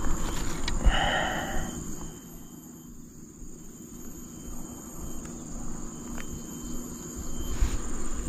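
Steady high-pitched insect buzz from the riverbank vegetation. About a second in there is a brief rustle of hands working damp groundbait and plastic bags, then a few faint handling ticks.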